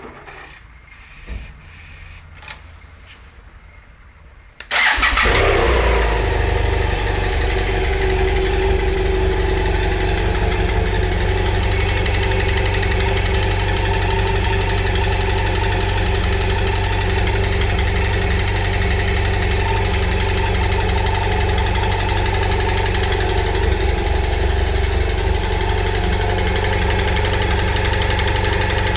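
BMW F800GS motorcycle's parallel-twin engine starting about five seconds in, after a few faint clicks, then running steadily at idle. The running engine makes a noise that the owner finds strange.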